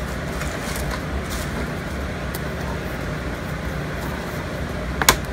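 Steady low hum of background room noise with a few faint clicks, and one sharp click near the end.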